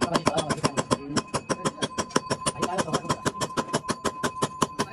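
A machine making rapid, even metallic knocks, about eight a second, with a steady high whine running underneath.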